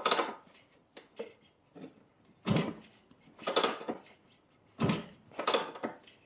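Lambretta scooter's kickstart kicked over several times, about a second apart, each stroke turning the rebuilt two-stroke engine over with a mechanical clatter without it firing. The kickstart is stiff, as a freshly rebuilt engine is at first.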